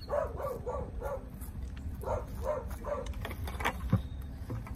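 A dog barking in rapid runs of short, high yipping barks, two runs of four or five. A single sharp knock comes near the end.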